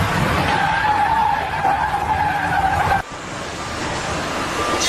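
Heavy vehicle rumbling, with a sustained high squeal over it that cuts off abruptly about three seconds in; a quieter rumble follows.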